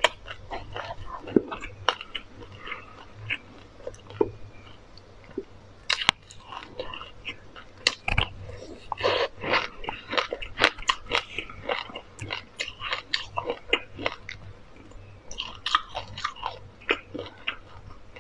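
Close-miked chewing of a mouthful of dry black sesame seeds: a dense run of fine, crisp crackling crunches, thickest in the middle and again near the end.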